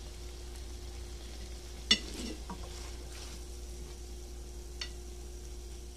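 Mixed vegetables frying in a pan with a low, steady sizzle. A sharp clink sounds about two seconds in, with lighter ticks later.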